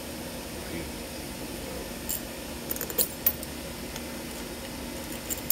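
A few small, sharp metallic clicks and taps as cap bolts are handled and started into a dry-sump gear oil pump held in a vise, over a steady low hum.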